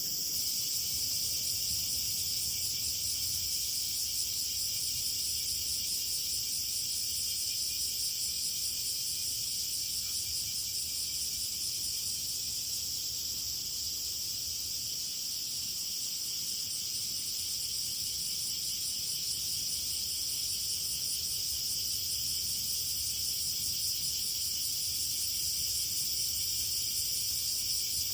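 A steady, high-pitched chorus of insects trilling without a break, several overlapping bands of calls.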